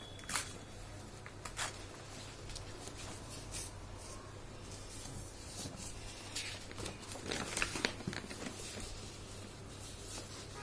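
A sheet of paper being handled, folded and creased by hand: scattered crinkles and rustles, with a couple of sharp crackles near the start and a busier stretch about three quarters of the way through. A steady low hum runs underneath.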